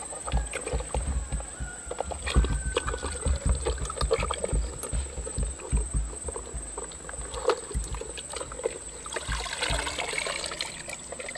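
Hands sloshing and scrubbing plastic toy cars in a tub of muddy water, with irregular splashes and knocks of plastic against the tub. About nine seconds in, water pours off a toy lifted out of the water.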